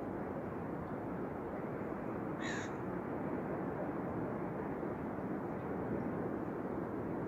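Steady rain falling during a thunderstorm, an even hiss with no thunder. About two and a half seconds in there is one short animal call.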